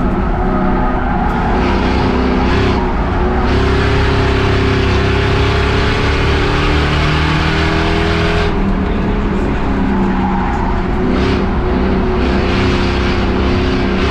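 Ford Crown Victoria V8 race car running hard at racing speed, a loud steady engine note whose pitch dips and climbs a little as the throttle is eased and reapplied.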